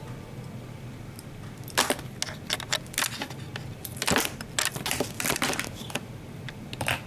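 Handling of a vintage multimeter and its test probe leads as the probes are fitted: a scattering of short sharp clicks and clatters, densest about four to five seconds in.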